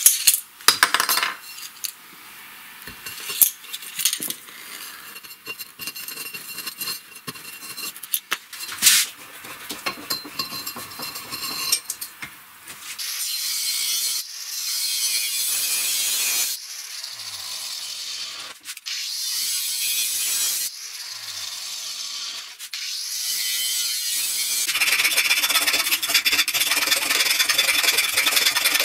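Scattered clinks of tools being handled, then a small abrasive cut-off wheel grinding into a steel tube held in a vise for a few seconds, twice. Near the end comes a steady rasping of a file on the tube's cut end.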